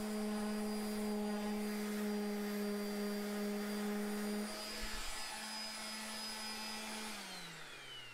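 Handheld electric sander's motor running with a steady whine, then spinning down and stopping about seven seconds in.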